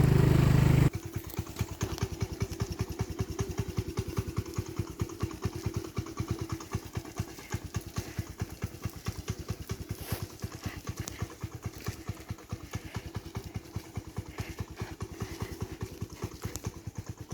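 Motorcycle engine running loud and steady for about the first second, then dropping suddenly to a steady idle with a quick, even run of firing pulses.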